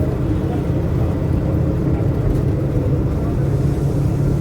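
Mini bus engine running steadily with road rumble, heard from inside the passenger cabin: an even low drone.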